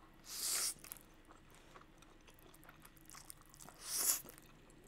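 A person slurping up a mouthful of spicy instant fire noodles twice, about half a second in and again around four seconds in, with soft chewing between the slurps.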